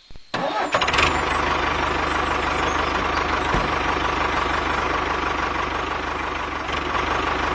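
Tractor engine running steadily with a fast, even low chugging. It starts abruptly about a third of a second in, after a brief silence.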